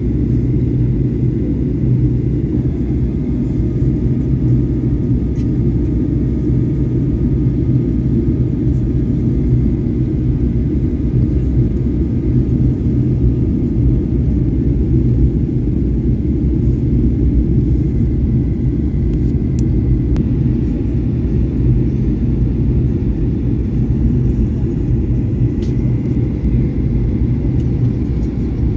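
Steady low roar of a Boeing 737-800 airliner in flight, heard from inside the passenger cabin: engine and airflow noise. A faint thin tone runs through the first half.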